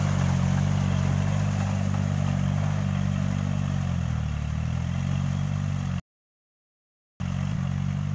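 Kubota compact tractor's diesel engine running steadily under load while pulling a rotary tiller through wet paddy mud. Its pitch dips briefly about halfway through. The sound cuts out completely for about a second near the end.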